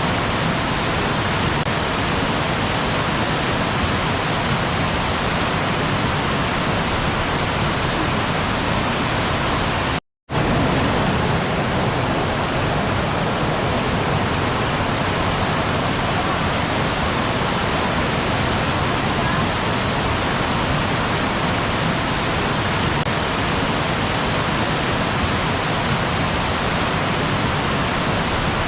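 Waterfall rushing in a steady, unbroken roar of falling water. The sound drops out completely for a split second about ten seconds in, then resumes unchanged.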